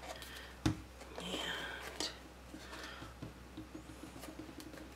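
Cardstock being handled while box tabs are glued together: soft rustling with a sharp tap about two-thirds of a second in and a few small clicks, over a low steady hum.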